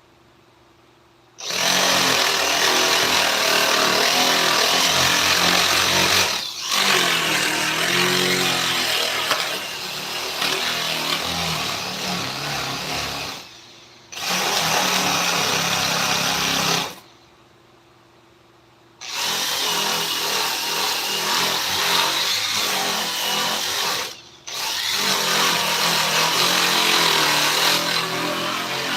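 Handheld power tool working wood in five runs with short pauses between them, its motor pitch dipping and rising as it takes load.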